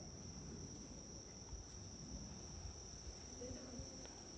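A steady, high-pitched chorus of crickets singing, over faint low rustling.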